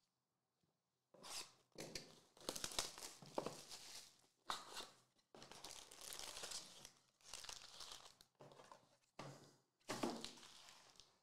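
Plastic shrink wrap torn off a trading-card hobby box, then the box's foil card packs crinkling as they are pulled out and handled. The crinkling starts about a second in and comes in repeated bursts.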